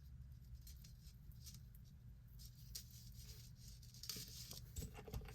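Faint rustling and light clicks of costume jewelry being picked up and handled, growing busier near the end, over a low steady hum.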